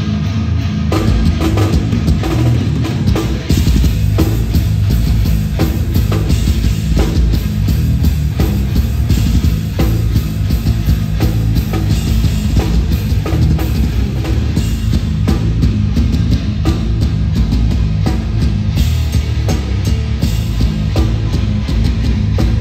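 Hardcore punk band playing live: heavy distorted guitars and bass over a driving drum kit beat, loud throughout.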